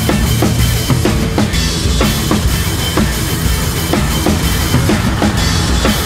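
Background rock music with a steady drum-kit beat, kick and snare hitting about twice a second.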